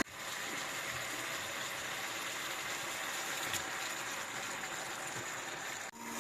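Steady sizzling hiss of food frying in a wok, which cuts off suddenly near the end.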